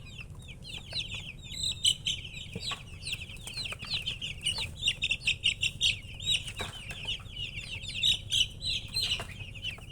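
A brood of baby chicks peeping, many short high chirps overlapping in a continuous chorus that grows busier and louder from about two seconds in.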